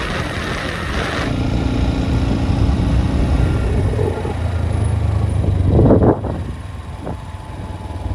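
Motorcycle on the move: a steady low engine-and-road rumble, with a short, louder burst about six seconds in.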